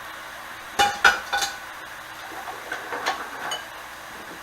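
Utensils and a plate clinking against a cast iron chicken fryer: three sharp clinks about a second in, then a few lighter taps.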